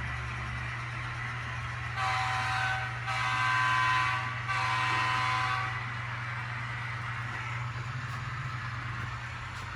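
Locomotive horn sounding three blasts about two seconds in, a short one then two longer ones, over a steady low hum from the running trains.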